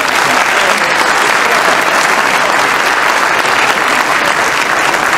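Loud, steady applause from a banquet audience.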